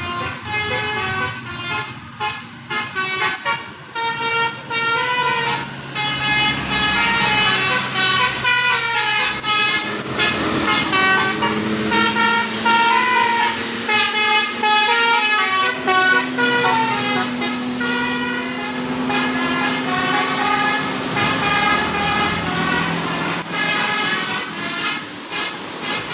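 Bus telolet horn, a Basuri multi-trumpet musical air horn, playing a fast tune: short notes stepping up and down, with several trumpets sounding together as chords.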